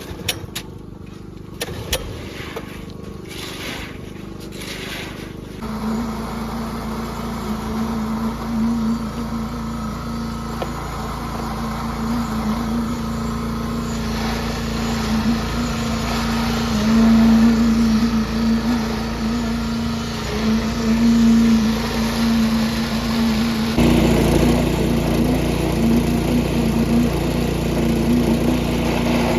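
A few knocks in the first seconds, then a machine engine comes in about six seconds in and runs steadily. It gets louder about 24 seconds in, during work on a concrete pour.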